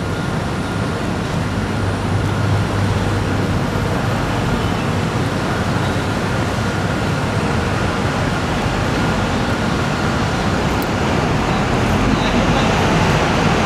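Steady background din of a bus interchange: buses running at the bays blended with surrounding traffic noise, growing slightly louder near the end.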